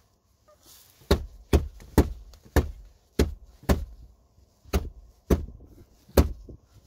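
A hand knocking on the plastic dashboard housing of a Honda Accord Euro R's top clock/climate display: about ten sharp knocks, roughly half a second apart, starting about a second in. The knocking is meant to jolt the intermittently dead display back on, which could point to a faulty circuit board or a poor connection.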